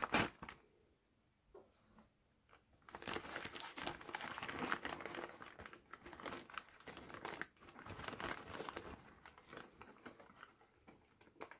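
Newspaper wrapping crinkling and rustling as it is unwrapped by hand from a small potted plant. A short crinkle comes right at the start, then a pause of about two and a half seconds, then steady crinkling that grows sparser toward the end.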